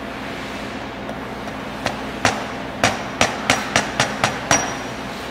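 A mallet tapping locating pins into a steel pump diffuser, so it cannot rotate in operation: about nine sharp metallic taps starting about two seconds in, quickening to roughly four a second. A low, steady machine-shop hum runs underneath.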